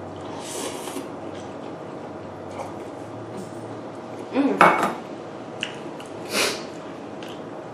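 Dishes and utensils clinking and clattering during a meal, with one loud clatter about four and a half seconds in and a shorter, sharper one about two seconds later.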